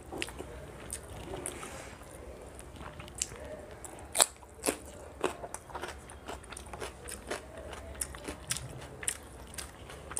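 Close-miked chewing of a mouthful of rice and curry, with irregular crunches and sharp wet mouth clicks; the loudest click comes a little past four seconds in.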